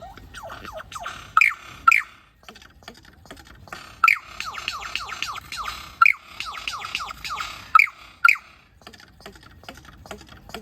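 A small pet animal making a string of short, high, falling squeaky chirps, several louder ones in quick pairs, with many small clicks in between.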